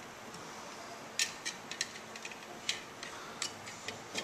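Handling of a plastic spring scale and its metal hook on a wooden half-meter-stick lever: about seven light, irregular clicks and ticks, the loudest a little over a second in.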